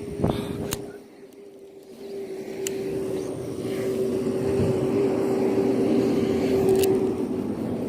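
Engine drone with a steady hum, growing louder over several seconds to a peak near the end, with a few sharp clicks on top.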